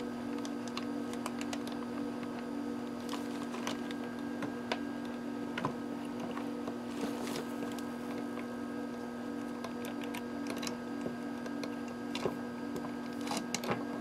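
Scattered light clicks and taps of pliers and a soldering iron against a metal chassis and solder lug while a wire is desoldered, over a steady low hum. The clicks come a little sharper near the end.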